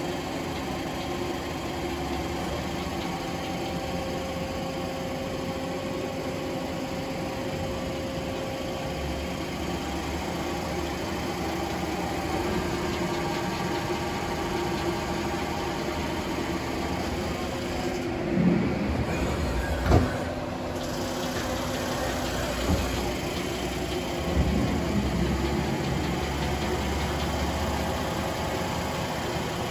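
Okuma Crown 762S-SB CNC lathe running: a steady mechanical hum with several held tones, broken by a few short knocks about two-thirds of the way through.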